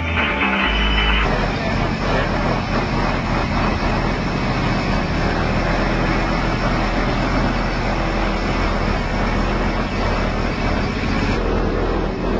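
Loud car-audio subwoofer bass, a steady low rumble that swamps the microphone. Music with stepping bass notes gives way to it about a second in.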